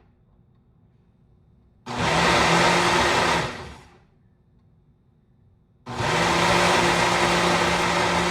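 Ninja blender pulsed on frozen fruit and dates: after a pause of about two seconds it runs in a short burst of about a second and a half and spins down, pauses again, then runs steadily from about six seconds in.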